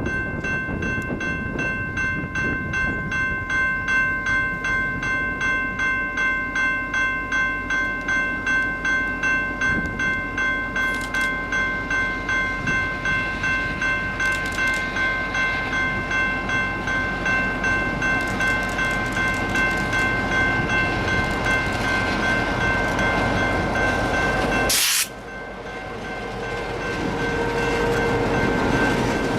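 Railroad grade-crossing bell ringing steadily, about two strikes a second, over the rumble of a train. There is a sudden break about 25 seconds in, after which the rumble returns.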